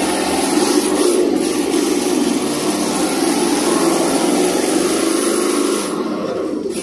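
Radio-controlled drift car running hard on concrete: a steady hiss of spinning, scrubbing tyres over the hum of its motor as it swings sideways past. The hiss stops near the end while the lower hum carries on.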